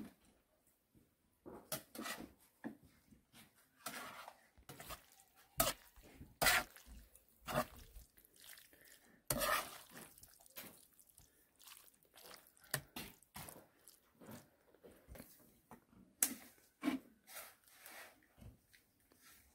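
A spoon stirring and scraping chopped vegetables in a frying pan, with scattered clinks and knocks of utensils and dishes.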